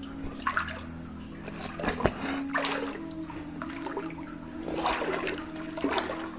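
Footsteps wading through water, a splash roughly every second.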